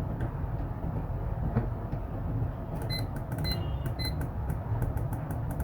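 A steady low hum, with a flurry of sharp clicks and a few short high electronic beeps starting about halfway through.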